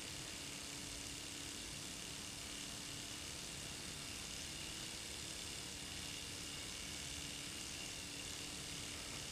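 Brass aeolipile (Hero's steam engine) spinning on its steam jets at roughly 1,500 to 2,000 RPM. It makes a very quiet, steady hiss with a faint steady tone running through it.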